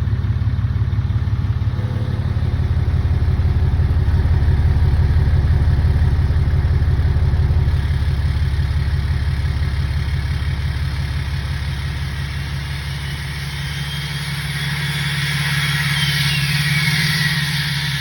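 Emissions-deleted 6.7 L Cummins turbo-diesel in a 2017 Ram running with a steady, pulsing engine note. Near the end a loud turbo whistle slides down in pitch and then holds one tone.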